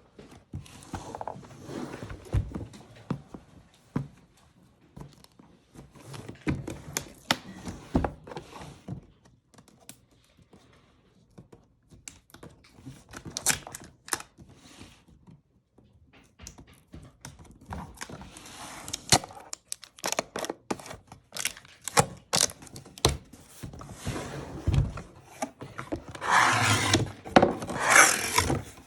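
Packaging of a boxed Dutch oven being handled and opened: scattered knocks, thuds and clicks, with louder rustling and tearing near the end.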